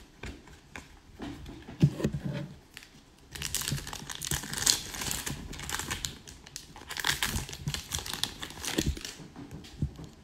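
Trading cards being handled, with a sharp knock about two seconds in. Then two long stretches of crinkling plastic wrapping, the first starting a little past three seconds and the second from about seven seconds.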